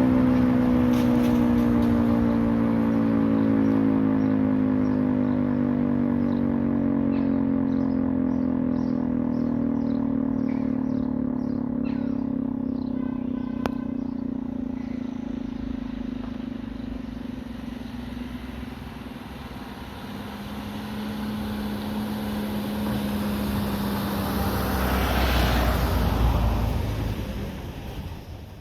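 Secomak CS8 motor-driven siren winding down after its test, its wail gliding slowly lower in pitch and fading. Near the end a rumbling noise swells and fades.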